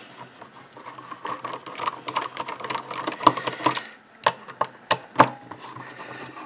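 Small precision screwdriver turning the bottom-plate screws of an Intel NUC mini PC: quick, irregular small clicks and scraping of the bit in the screw heads, with a few sharper clicks in the second half.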